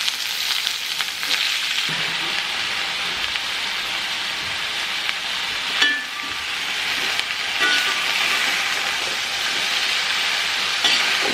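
Sliced onions sizzling in hot coconut oil in an aluminium kadai as more are tipped in and turned with a slotted metal spoon. There is a sharp clink of the spoon against the pan about six seconds in.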